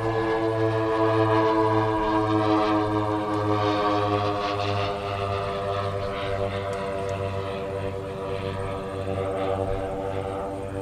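Twin DLE 111cc two-stroke gas engines of a 1/5-scale F7F-3 Tigercat RC model turning 3-bladed props in flight. The engines run with a slow, regular throb, and the pitch glides slightly lower as the plane passes, loudest in the first few seconds.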